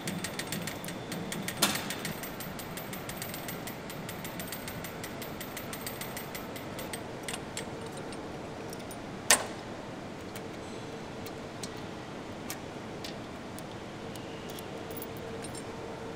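Metal clicks and clanks of a Sea-Catch quick-release hook being fitted onto steel shackles on a pull-back winch. A sharp click comes about two seconds in and a louder single clunk about nine seconds in. A fast run of light ticks fills the first seven seconds over a faint steady hum.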